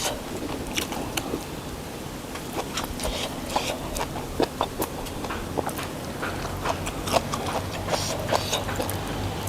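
Someone chewing food close to the microphone, with irregular crunches and mouth clicks. A low steady hum comes in about six seconds in.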